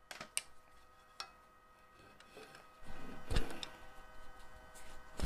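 Small clicks and knocks of hand tools being picked up and set down while marking out a piece on the lathe: a few sharp ticks in the first second or so, a cluster of knocks and rustling about three seconds in, and another knock at the end, over a faint steady hum.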